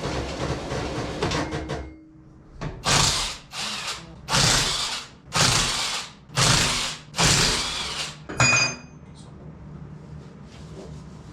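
A power tool run in about six short bursts of half a second each, roughly one a second, while the suspension is being dismantled. A steady pitched sound runs through the first two seconds.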